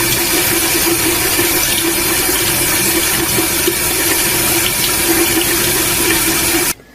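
Steady loud rush of running water, cutting off abruptly near the end.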